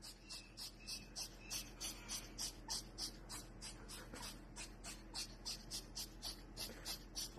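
Hawk-headed parrot nuzzling and nibbling at a man's face: faint, rhythmic scratchy hissing, about three short strokes a second.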